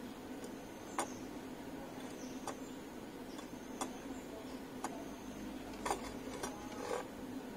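Light, irregular clicks and taps, roughly one a second, from hand soldering of component leads on a circuit board, over a steady low hum.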